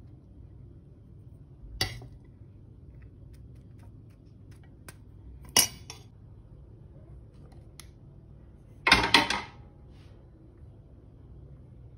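Dishes and cutlery clinking: single sharp clinks about two and five and a half seconds in, then a longer, louder clatter around nine seconds, over a faint low hum.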